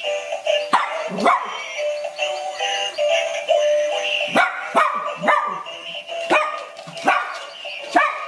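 Dog barking in sharp single barks, about eight at irregular spacing, over background music.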